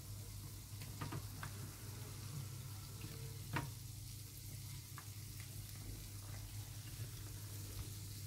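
Egg-battered sandwich squares frying in plenty of hot sunflower oil in a frying pan: a steady sizzle with a few sharp pops, the loudest about three and a half seconds in, over a low steady hum.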